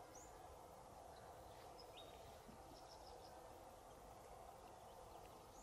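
Faint outdoor ambience: a low steady background hum with a few brief, high bird chirps scattered through it.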